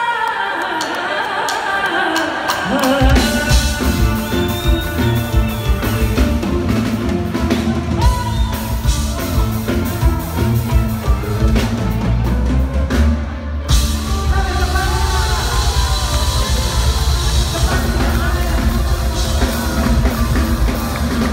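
Live band music with a woman singing: a sung opening over lighter backing, then the full band with drum kit and bass comes in with a steady beat about three seconds in.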